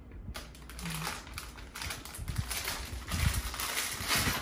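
Clear plastic packaging bag crinkling and rustling as it is handled and opened to get a phone case out, an irregular crackle starting a moment in.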